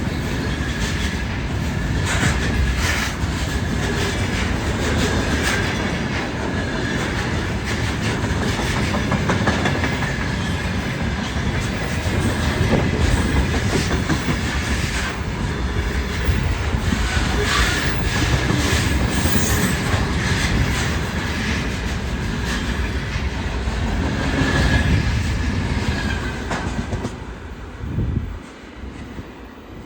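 Container freight wagons rolling past, the wheels clattering over rail joints, with a faint steady high squeal from the wheels; the noise eases off near the end as the train passes.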